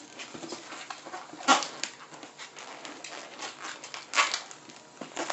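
Latex 260 modelling balloon squeaking and rubbing as it is twisted into bubbles by hand, in irregular squeaks with two louder bursts, one about a second and a half in and one about four seconds in.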